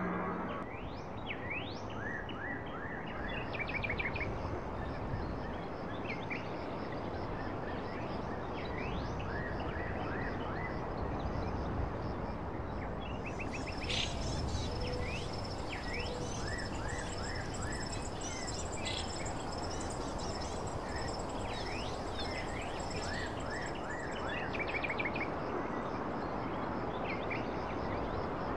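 Outdoor ambience of small birds chirping repeatedly over a steady background hiss, with a high, steady trill joining in for about ten seconds in the middle.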